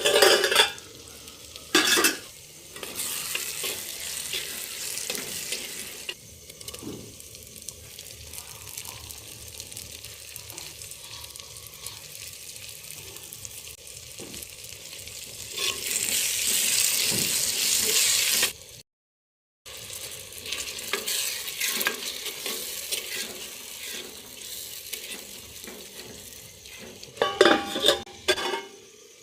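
Food frying and sizzling in a clay cooking pot while it is stirred, with a few louder knocks near the start and again near the end. The sizzle grows louder for a couple of seconds past the middle, then cuts off briefly before the frying resumes.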